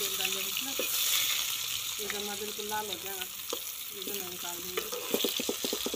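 Stuffed bitter gourds, wrapped in thread, sizzling steadily as they fry in hot oil in an iron kadhai. A quick run of clicks comes about five seconds in.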